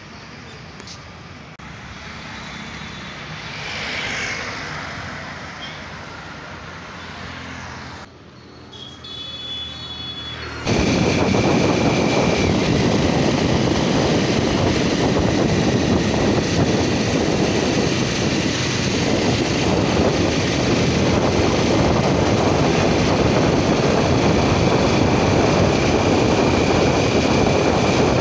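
Motorcycle riding noise: steady wind rush on the microphone mixed with the bike's engine, which comes in suddenly and loud about eleven seconds in and holds. Before that, street traffic with a scooter passing.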